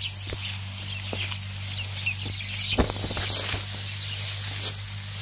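Dry, ripe rice stalks crackling and snapping as they are gathered and cut by hand with a sickle, in short irregular strokes, the sharpest a little under three seconds in. Birds chirp in the background.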